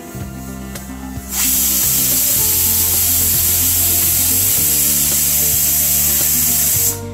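Pressure cooker venting steam: a loud, steady hiss that starts suddenly about a second in and cuts off suddenly near the end, over background music.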